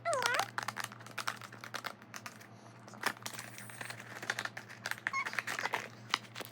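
Quick, light clicks and crinkling of small items and plastic packaging being handled.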